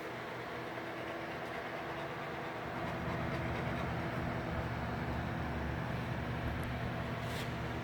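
Steady hiss with a low, many-toned hum, stepping up in level about three seconds in, plausibly the audio of a Collins 75A-4 shortwave receiver under restoration.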